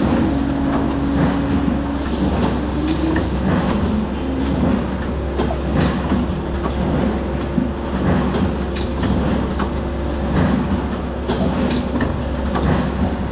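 Cup filling and sealing machine running: a steady mechanical hum and clatter, with a sharp knock about every one and a half seconds as the transfer arm cycles cups onto the conveyor.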